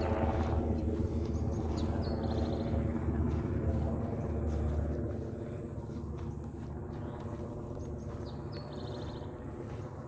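Steady drone of a distant engine, a low hum with several even tones above it, fading out about halfway through. A short, high bird trill sounds twice, once about two seconds in and again near the end.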